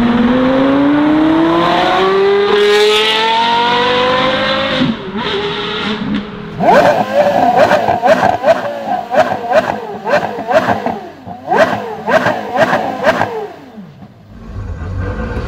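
Porsche Carrera GT's 5.7-litre V10 accelerating hard, its pitch climbing for about five seconds. Then, with the car standing, the same engine is blipped about a dozen times in quick succession, sharp revs with short drops between. It falls quiet near the end.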